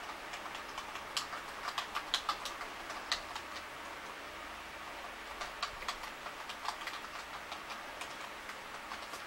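Typing on a computer keyboard: two runs of quick keystrokes, the second starting a little past halfway, over a steady low hiss.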